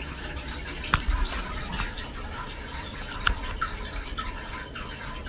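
Cat lapping water from a toilet bowl: irregular small wet splashes and ticks, two of them sharper, about a second in and about three seconds in.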